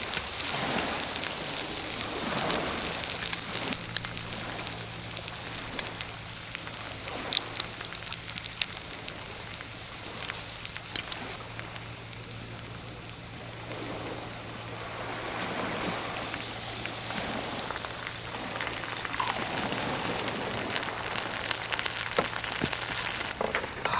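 Thick-fried tofu (atsuage) sizzling in oil in an iron frying pan on a camp stove, a steady frying hiss dotted with small pops. A faint low hum sits underneath for much of the time.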